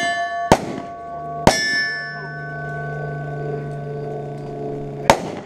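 9mm Glock-pattern pistol shots: one about half a second in, another a second later, and a third near the end. Between them a struck steel target keeps ringing with a clear metallic tone that lasts several seconds.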